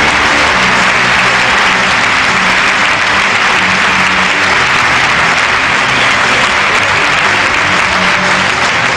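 A large audience applauding steadily, with music playing faintly underneath.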